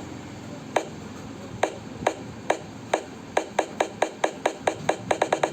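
Percussive ticks from an electronic music track played through the amplifier's speaker. They start about a second apart and speed up to roughly eight a second near the end, like a drum build-up leading into the track's drop.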